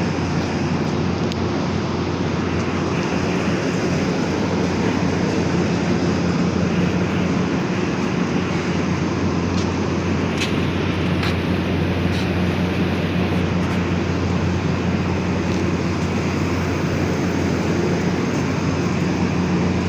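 Steady drone of factory machinery with a constant low hum, and a few faint clicks about halfway through.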